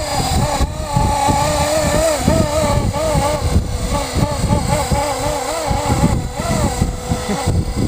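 Blade SR radio-controlled helicopter's electric motor and rotor whining, the pitch wavering up and down continuously as it holds its flight in gusty wind. Low gusts of wind rumble on the microphone underneath.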